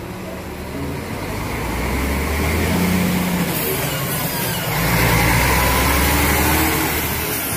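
Marcopolo double-decker coach's diesel engine pulling away and driving close past. It grows louder from about a second in, eases briefly about halfway, then pulls louder again before fading near the end.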